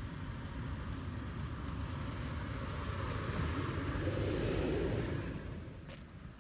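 2018 Toyota 4Runner TRD Off-Road's 4.0-litre V6 engine running low as the truck crawls up a sandy trail. It grows louder as the truck passes close by about four seconds in, then fades near the end.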